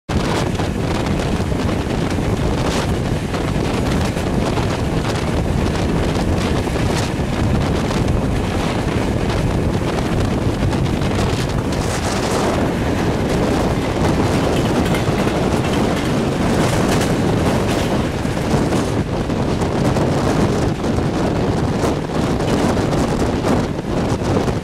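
Train running at speed: a steady loud rush of wheel and air noise with wind buffeting the microphone.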